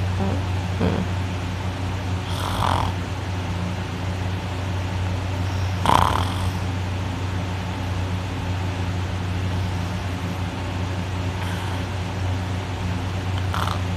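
A person in deep sleep snoring loudly through a mouth held open, nose pinched shut, the soft palate vibrating hard. It is a steady low drone, with sharper breathy snorts about 1, 3 and 6 seconds in and again near the end.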